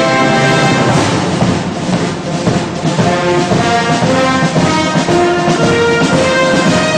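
Band music with brass instruments playing a melody of held notes.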